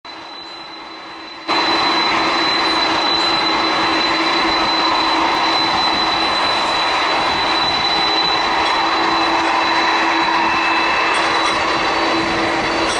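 Airplane engines running with a steady, loud roar and a constant hum, which jumps up suddenly about a second and a half in.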